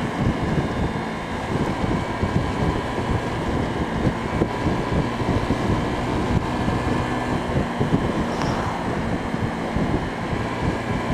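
Steady wind buffeting on the microphone of a rider on a Honda PCX scooter at road speed, with the scooter's single-cylinder engine and tyre noise running underneath.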